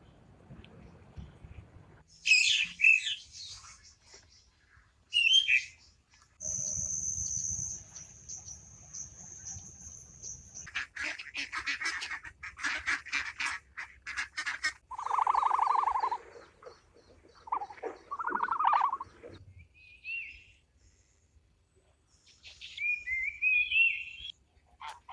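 A series of separate high chirps, whistles and trills typical of bird calls, including one long steady high whistle lasting about four seconds and a rapid run of notes after it.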